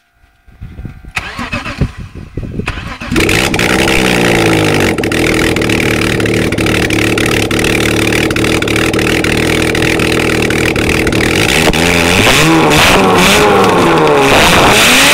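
BMW M50 straight-six engine, out of the car and running on its bare exhaust manifolds, cranked by the starter for about two seconds until it catches. It flares and settles to a steady idle, then is revved up and down repeatedly near the end.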